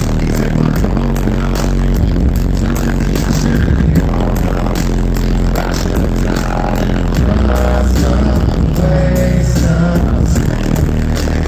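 Loud hip-hop beat with heavy bass played over a club PA at a live rap show, with the rapper's voice on the microphone over it; a pitched line runs through the middle of the sound from about six seconds in.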